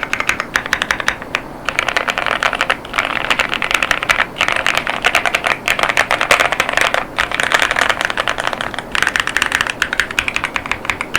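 Fast typing on an Angry Miao CyberBoard mechanical keyboard with Kailh Clione Limacina tactile 48gf switches and polycarbonate Cherry-profile keycaps: rapid, dense keystroke clacks in runs, broken by brief pauses every second or so.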